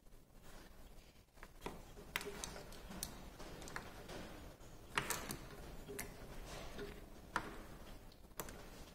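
Irregular small clicks and rustling as ignition test leads and clip connectors are handled and moved about, the loudest clicks about five seconds in.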